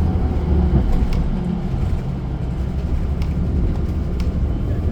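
Steady low rumble of a city bus's engine and tyres heard from inside the passenger cabin, with a few faint clicks of rattles.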